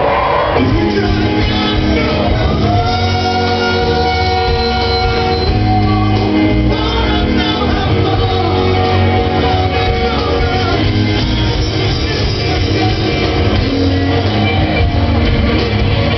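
Live rock band playing a song, with guitar and singing.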